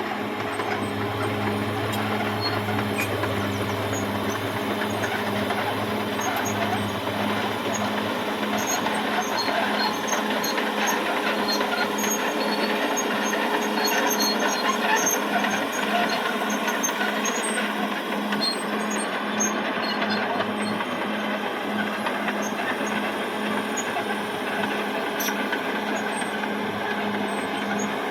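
Caterpillar D6R XL bulldozer's diesel engine running steadily at working speed, with scattered small metallic clicks over it.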